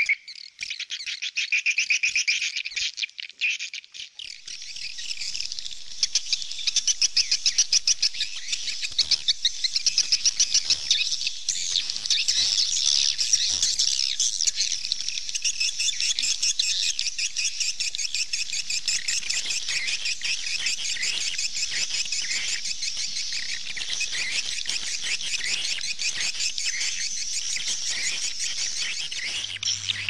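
Swallows twittering in a dense, rapid chatter of high calls. There is a short lull about four seconds in, then the chatter runs on almost without a break.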